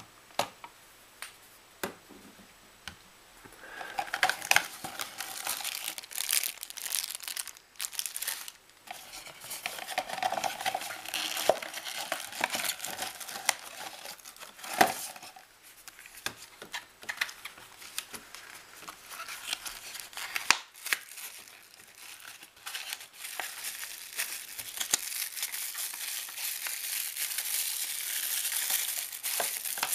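Plastic packaging crinkling and rustling as a cardboard box and its contents are handled, with scattered sharp clicks and knocks. The first few seconds hold only a few isolated clicks before the crinkling starts and keeps on, growing louder near the end.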